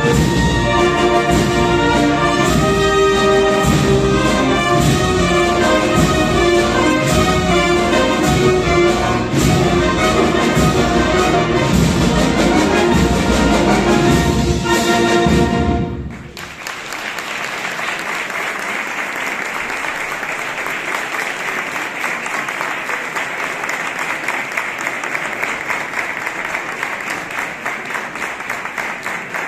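Wind band of clarinets, saxophones and brass playing the close of a Spanish processional march (marcha procesional), which stops abruptly about sixteen seconds in. An audience then applauds steadily.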